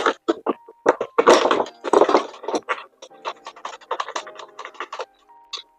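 Irregular scraping, rustling and clicking of plastic hoop parts being handled and fitted together, busiest in the first couple of seconds and sparser towards the end, over faint steady background tones.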